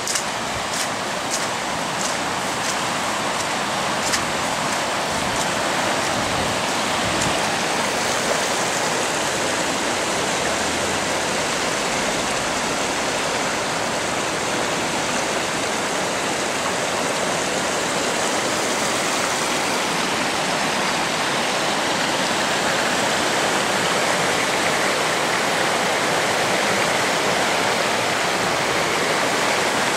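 Swollen torrent in flood: a steady rush of fast-moving floodwater that grows slightly louder toward the end.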